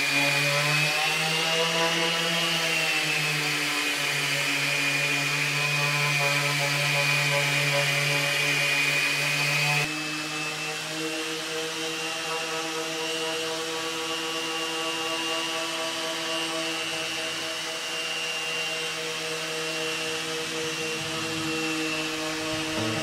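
DeWalt random orbit sander with a dust-extraction hose attached, running steadily on an ash board: a steady motor hum with a high whine over it. About ten seconds in, the sound cuts to a quieter, slightly higher-pitched steady run as the sander works another panel.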